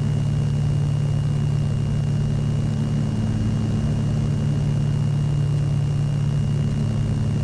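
Steady cabin drone of a Piper Navajo's twin piston engines and propellers in level flight, a constant low hum with a faint steady high-pitched whine over it.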